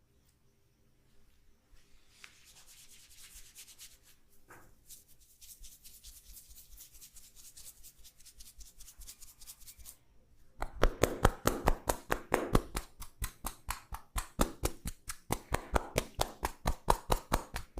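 Hands rubbing softly over skin, then, about ten seconds in, a fast, even run of hand taps or pats, roughly seven a second, much louder than the rubbing.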